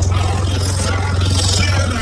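Deep sustained bass note from three Sundown X-15 v3 15-inch subwoofers in a fourth-order box wall, heard inside the truck cab. Crackling, rattling noise sits over the bass.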